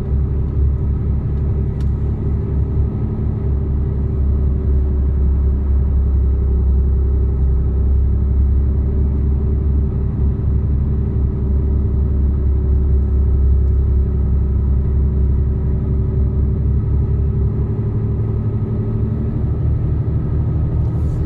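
Mercedes-Benz Actros truck's diesel engine pulling up a steep climb in second gear under a load of about 10 tonnes. It makes a steady, deep rumble that holds an even pitch throughout.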